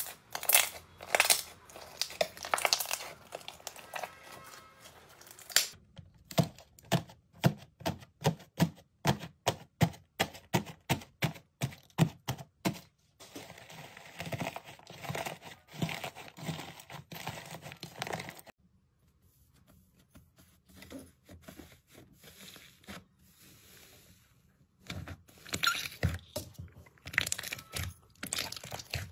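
Slime being squished and pressed by hand, making crackling, clicking and crunching pops. One stretch holds a quick even run of about three clicks a second, and a quieter, sparser patch comes past the middle.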